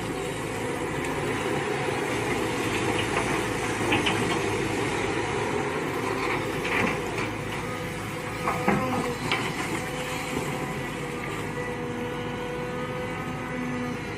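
Mini excavator engine running steadily while digging, with several short clanks and knocks from the working machine.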